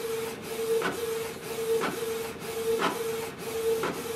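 Canon PIXMA TS3700 inkjet printer printing a nozzle check sheet: a pulsing motor hum with a short swish about once a second as the print-head carriage sweeps back and forth.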